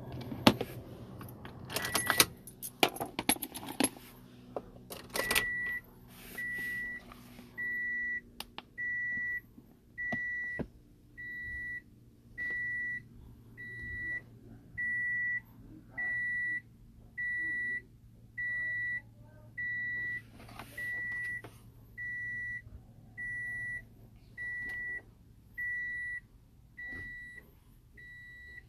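Keys jangling and clicking as a car key is put into the ignition, then a steady electronic beep repeating about once a second while the key is being programmed.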